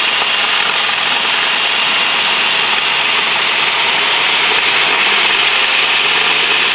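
Cessna 172P's four-cylinder Lycoming engine and propeller at full power on the takeoff roll, heard loud and steady inside the cabin. A faint high whine starts rising in pitch about four seconds in.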